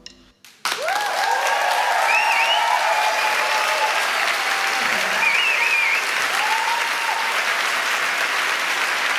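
Audience applause and cheering that breaks out suddenly less than a second in after a moment of silence, then keeps up steadily, with scattered whoops through it.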